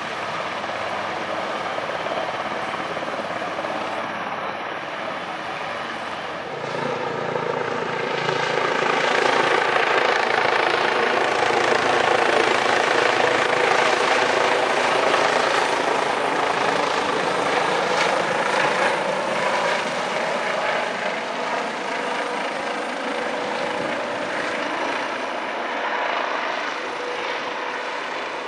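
Helicopter rotor and turbine noise: an AS332 Super Puma hovering first, then, after an abrupt change about six seconds in, an EC135 flying close by, louder through the middle and easing off near the end.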